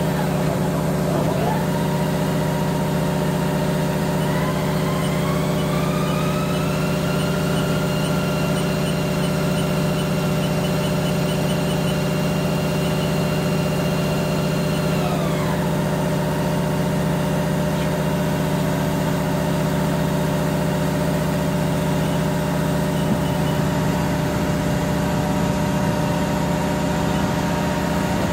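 Haas EC-1600 CNC horizontal mill running with a steady machine hum. Its spindle whine rises in pitch about four seconds in, holds steady for several seconds, then winds back down about halfway through.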